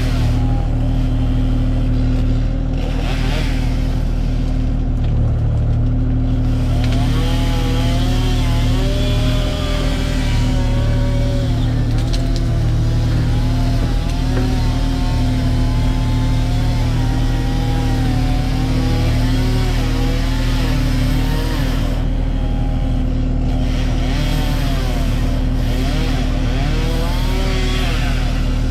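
Kubota KX040 mini excavator's diesel engine running steadily under work, with a wavering higher whine over it from about seven seconds in.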